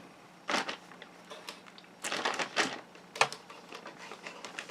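Handling noise from unpacking: brief rustles and clicks of packaging and small parts being moved, with a cluster of rustling about two seconds in and a sharp click just after three seconds.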